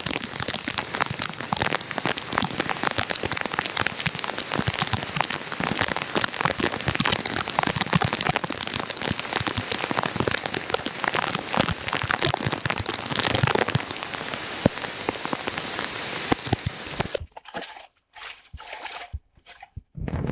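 Heavy rain pattering densely on a wet surface as a steady crackle of drops. It cuts off abruptly about seventeen seconds in, leaving a few scattered clicks.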